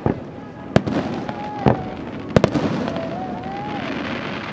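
Fireworks display: shells bursting in sharp bangs, about five in the first two and a half seconds, over a steady background of crowd noise. A wavering tone rises and falls around the middle and again near the end.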